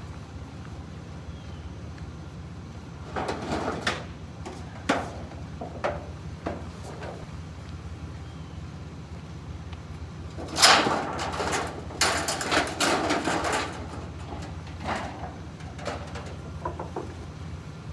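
A vehicle's engine runs steadily, with several bursts of clattering and knocking on top of it, the loudest and longest about ten to thirteen seconds in.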